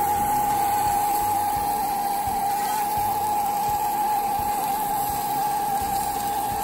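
Two gas blowlamps burning steadily under a spade used as a frying pan, a constant hiss with a steady tone through it, as bacon and sausages fry on the hot metal.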